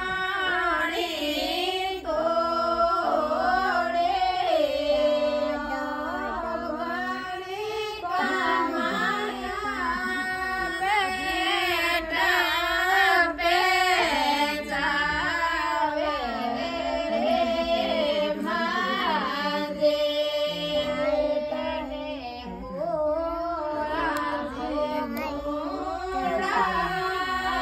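Women singing a Rajasthani ratijoga folk song, a traditional devotional night-vigil song, in high voices with long held notes that glide and waver.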